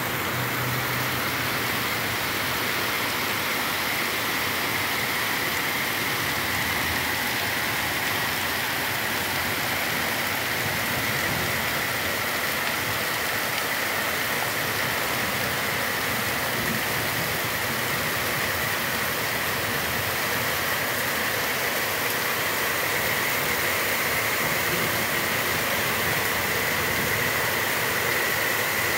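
Heavy tropical downpour: a steady, even hiss of rain falling hard over houses and roofs, unchanged in strength throughout.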